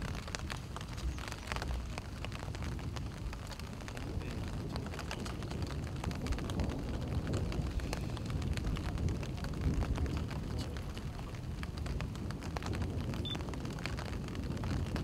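Outdoor ambience: a steady low rumble with many small scattered ticks and crackles, and a single short high peep near the end.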